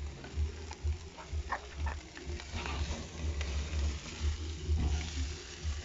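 Chicken sizzling over a charcoal braai fire, with scattered crackles and pops from fat dripping into the flames, over a low rumble.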